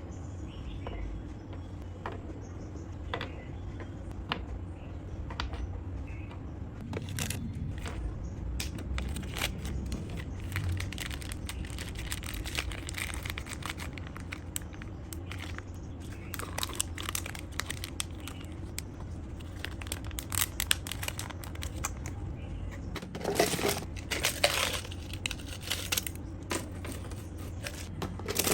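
Close-up handling of small lure-making parts and packaging: scattered clicks and taps with plastic crinkling, louder for a few seconds near the end, over a steady low hum.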